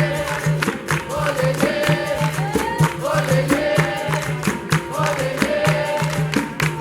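Capoeira music: voices singing over a steady, even percussion beat.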